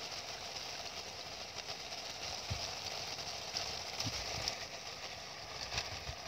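Steady hiss of a pot cooking on a portable gas stove, with a few faint soft knocks as handfuls of cabbage leaves are dropped into the pot.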